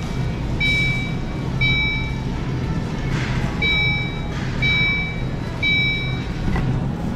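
Electronic beeper sounding a high, even tone of about half a second roughly once a second, six times, with a one-second gap midway. A steady low hum of store machinery runs underneath.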